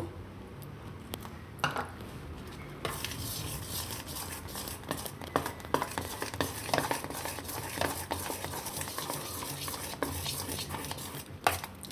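Steel spoon stirring thin semolina (rava) dosa batter in a stainless steel bowl: a wet churning sound with frequent clicks of the spoon against the bowl, starting about three seconds in.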